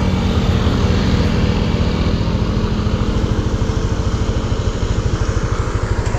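Small motor scooter engine running under the rider, settling into a quick, even pulsing idle in the second half as the scooter comes to a stop, with a steady hiss over it.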